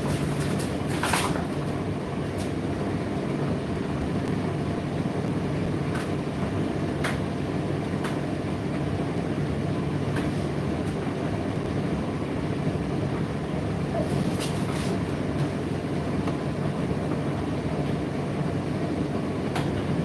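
Indesit IDC8T3 condenser tumble dryer running mid-cycle: a steady low hum and rumble from the motor and turning drum, with a few light clicks scattered through it.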